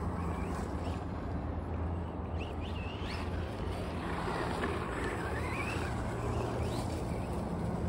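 Electric motor of a Remo Hobby 9EMU radio-controlled short course truck whining up and down in pitch with the throttle as it drives over mulch and a gravel path, over a steady low rumble.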